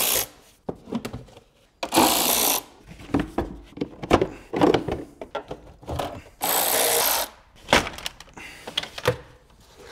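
Handheld cordless power driver running in two short bursts, about 2 s and 6.5 s in, undoing fasteners on the engine's intake and cover. Between the bursts come plastic clunks and knocks as the air filter housing and covers are handled.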